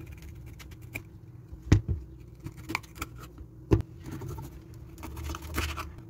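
A kitchen knife cutting through banana stems to part single bananas from the bunch, against a wooden cutting board. There are small ticks, two sharp knocks on the board about two seconds apart, and some scraping near the end.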